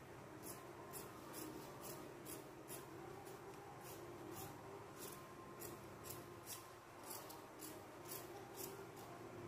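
Fabric shears snipping through dress fabric and a paper pattern, faint, with a steady rhythm of about two cuts a second.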